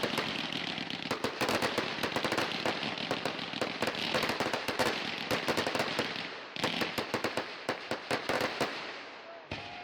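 Fireworks crackling: a dense run of rapid pops and crackles, a brief break about six and a half seconds in, then more crackling that thins out, with a single sharp bang near the end.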